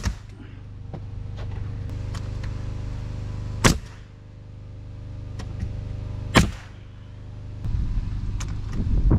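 Nail gun fastening a siding board: three sharp shots, about a second and a half, four seconds and six and a half seconds in, over a steady motor hum that dips after each shot and builds again. A rougher, rustling noise near the end.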